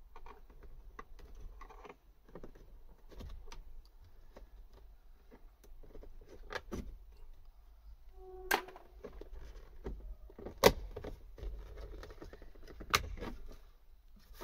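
Plastic window-switch panel of a Ford Mondeo Mk5 door being pried out of the door trim with a screwdriver: small plastic clicks, scraping and rattling, with three sharp clicks about two seconds apart in the second half as it works free.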